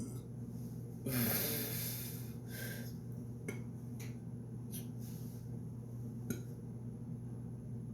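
A man taking a heavy breath about a second in, then a shorter breath, followed by a few faint clicks over a steady low hum.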